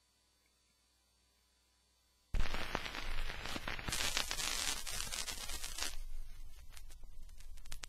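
Vinyl LP surface noise under a turntable stylus in the lead-in groove: near silence, then about two seconds in a sudden loud hiss and crackle that settles about six seconds in to quieter scattered ticks and pops.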